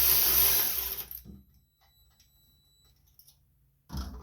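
Power drill spinning a socket to back out a small bolt, running steadily and stopping about a second in; a few light clicks of tool handling near the end.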